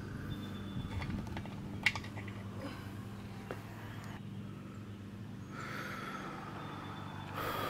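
Scattered faint clicks and small taps of hands working a tire pressure (TPMS) sensor and its metal valve stem loose inside an alloy wheel, over a steady low hum.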